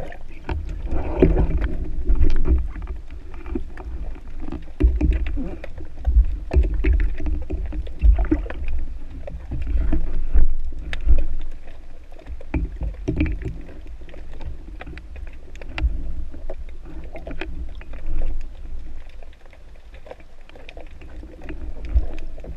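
Water noise picked up by a spearfisher's underwater camera: uneven deep rumbling and sloshing, with scattered small clicks and knocks.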